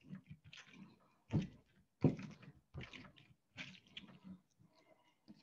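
Kitchen handling sounds as a lemon is cut and juiced by hand: a few irregular knocks and scrapes with quiet rustling between.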